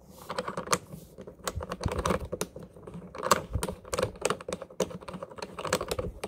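Rapid, irregular clicking and rattling as a high-pressure hose's coupling nut is fumbled and turned onto the threaded metal water outlet of a Sun Joe SPX3000 electric pressure washer.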